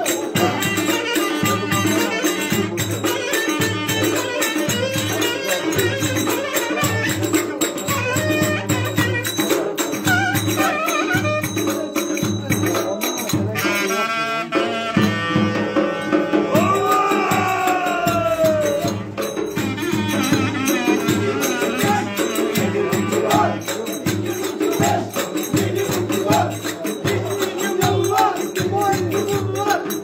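Live Turkish folk dance music: a davul, the large double-headed bass drum, keeps a steady beat under a reed wind instrument playing the tune, with quick clicking over the top.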